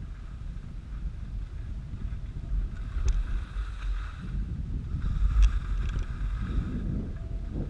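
Wind buffeting the microphone of a body-worn camera while skiing, with the swish of skis turning through soft snow swelling and fading, and a couple of sharp clicks.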